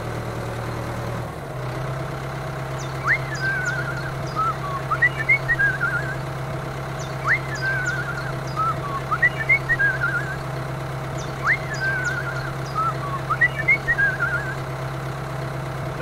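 Tractor engine running steadily at an even pitch. Over it, the same short chirping birdsong phrase repeats about every four seconds.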